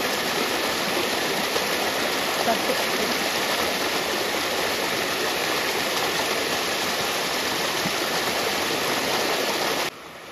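Shallow stream rushing over rocks in small cascades, a steady rush of water. Near the end it cuts off abruptly to a much quieter, duller water sound.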